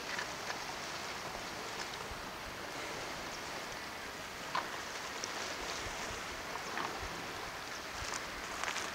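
Calm sea washing against the shore rocks: a steady wash of water with a few faint clicks and splashes scattered through it.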